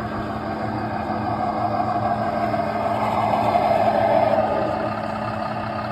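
Electric motor and gear drive of a radio-controlled Traxxas truck whirring steadily under load, swelling louder about four seconds in, then easing off.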